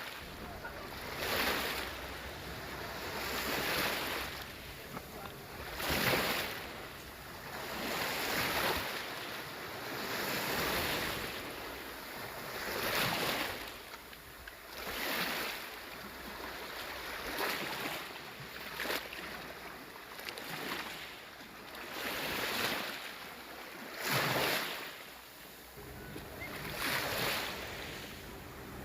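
Small sea waves washing onto the shore, the surf swelling and falling back about every two seconds.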